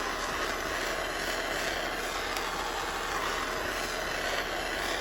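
Jeweller's soldering torch flame hissing steadily as it is moved over the piece to bring it up to soldering heat, before the flux clears and the wire solder is applied.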